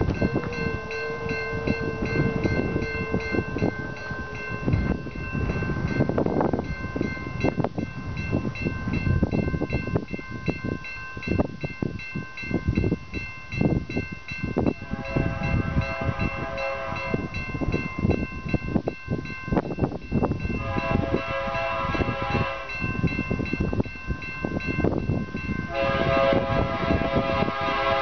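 Air horn of an approaching freight locomotive sounding three long blasts, about 15, 21 and 26 seconds in, the last still going at the end. Steady thin ringing tones and gusty buffeting run underneath throughout.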